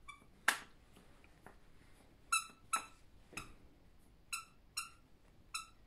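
Dog's squeaky toy squeaking: about six short, high squeaks, several in pairs about half a second apart, as the toy is squeezed and let go. A sharp knock about half a second in.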